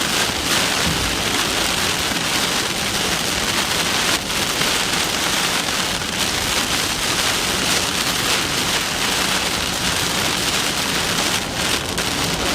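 Heavy rain falling steadily, an even, dense hiss with no letup.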